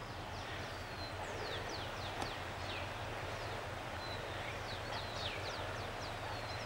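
Steady rushing of a rocky mountain creek, with small birds chirping over it in many quick, high, downward-sliding notes.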